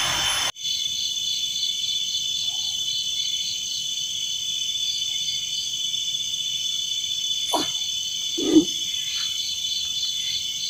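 Night chorus of crickets and other insects: a steady high-pitched trilling in several tones, with a chirping call repeating about four times a second. Two short low sounds break in about three-quarters of the way through, the second being the loudest.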